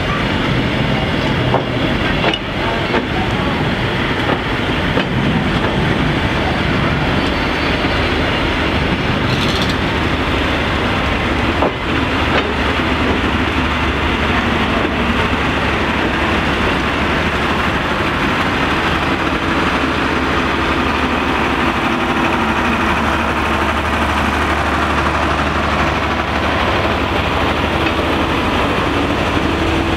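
Train of wooden-bodied passenger carriages rolling past, a steady rumble of wheels on rail with a few sharp clicks over rail joints.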